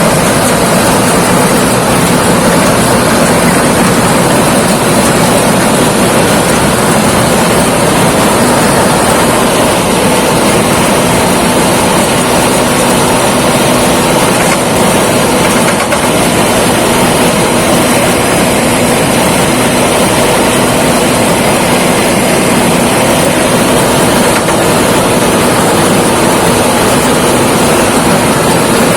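Thai Seng 'Chao Phayu' rice combine harvester running steadily while harvesting rice: a loud, even machine drone with no let-up.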